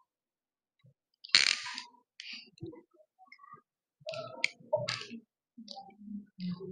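Clicks and scraping of a cable-stripping hand tool working on an Ethernet cable as its outer jacket is cut and pulled off: one sharp click about a second and a half in, then a cluster of clicks and scrapes a little past the middle.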